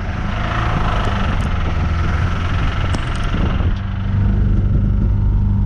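Ford Ranger engine running as the truck drives, a steady low hum with a rushing hiss over the first three seconds or so that then eases. The engine has a little rod knock.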